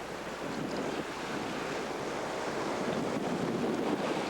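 Wind buffeting the microphone over the rush of sea water along a sailboat's hull as it runs fast through big swells, swelling slowly louder over a few seconds.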